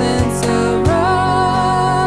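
Worship band music: a singer holds one long note over instruments and drum hits.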